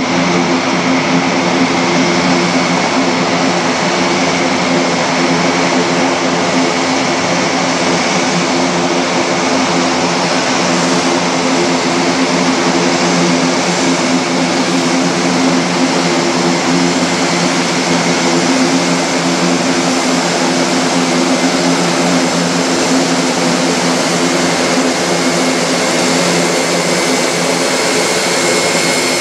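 Airbus A400M Atlas taxiing, its four TP400-D6 turboprop engines and eight-bladed propellers running steadily at taxi power: a loud, even propeller drone with a hum of several pitches over turbine hiss and a faint high whine.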